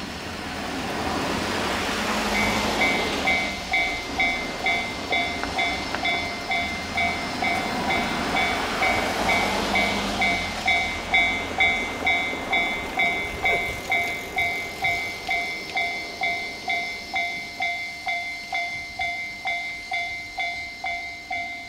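Japanese railway level crossing warning bell ringing: an electronic ding repeating steadily at a little under two rings a second, starting about two seconds in. For the first half it sounds over the running noise of a passing train, which fades away, leaving the bell alone.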